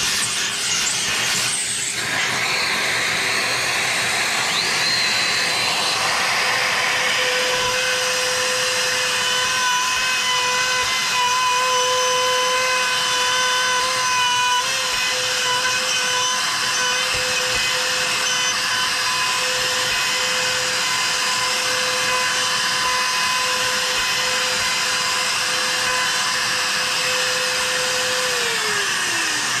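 Makita trim router cutting a bowtie recess in wood through a template, over a steady rushing noise. The motor's high whine settles in about a quarter of the way in and holds, then falls in pitch near the end as the router is switched off and spins down.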